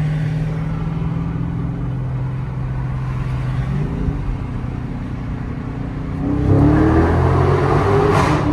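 Chrysler 300's engine heard from the car, running steadily at cruise, then opening up about six seconds in into a full-throttle pull with the pitch climbing. A short sharp burst sounds near the end.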